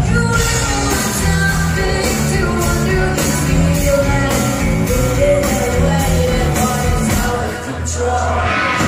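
Rock band playing live on stage, with a female lead singer over guitars, bass and drums, heard loudly from within the audience.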